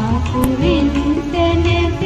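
Background music: a sung melody gliding over a pulsing bass beat.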